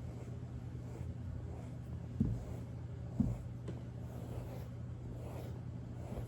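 Two dull thumps about a second apart over a steady low hum.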